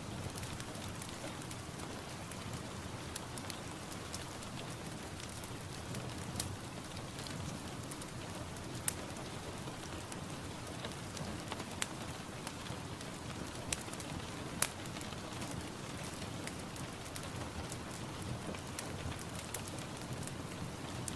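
Steady rainfall: a constant hiss of rain on a surface, with many sharp close drop hits scattered through it and a few louder ones.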